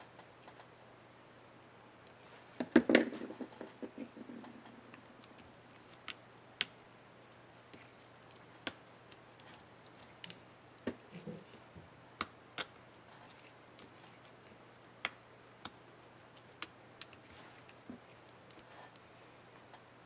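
Small plastic clicks and snaps from a laptop keycap and its scissor clip being handled on an HP Mini 5101 keyboard: a burst of clacking about three seconds in, then scattered single sharp clicks.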